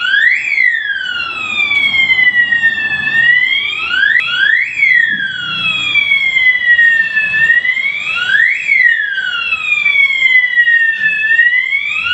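12/24 V DC electronic fire alarm siren sounding a wailing tone that climbs quickly and then falls slowly, repeating about every four seconds.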